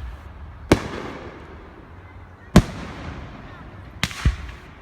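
Fireworks display shells bursting: a sharp boom under a second in, another near the middle, and a quick pair close together near the end, each trailing off in an echoing rumble.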